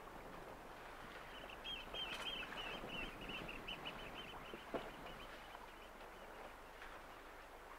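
A bird calling a quick run of short, high, repeated notes for about four seconds, fading away, over the steady wash of water and wind around a sailing yacht. A small knock comes about five seconds in.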